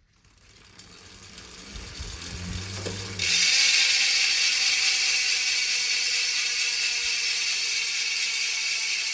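DT Swiss 350 rear freehub with a 54-tooth ratchet freewheeling as the rear wheel spins: a fast ratchet buzz that builds over the first few seconds, jumps sharply louder about three seconds in, then slowly fades as the wheel coasts. Among the loudest of hubs.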